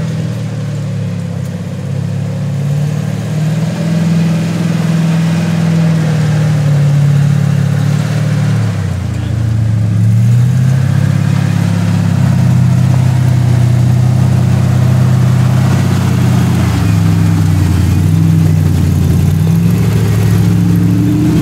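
Lifted off-road Jeep's engine running and revving as it crawls down a dirt trail, its pitch shifting with the throttle a couple of times and growing louder as it comes up close.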